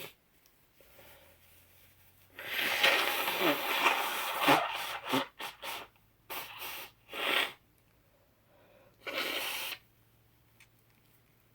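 A woman's nose-clearing in a sneezy, sniffly fit: a loud, rough burst lasting about two seconds a couple of seconds in, then three shorter bursts.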